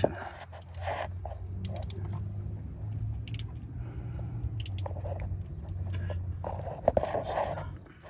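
Hand tools clicking and scraping against metal parts under a car, over a steady low hum.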